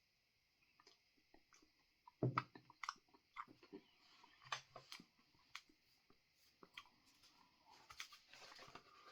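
A person chewing a mouthful of crispy chilli oil: faint, scattered wet mouth clicks and small crunches.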